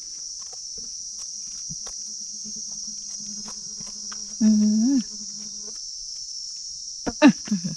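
Steady, high-pitched chorus of forest insects such as cicadas or crickets. A person's voice hums briefly a little past halfway, with short voice sounds and light crackles of movement near the end.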